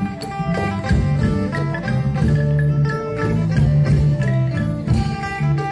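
Traditional Thai music: a melody of short struck and plucked notes with percussion over sustained low notes.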